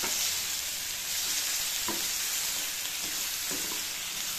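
Chopped onions sizzling in hot oil with whole cumin and coriander seeds in a frying pan, stirred with a wooden spatula that scrapes the pan a few times.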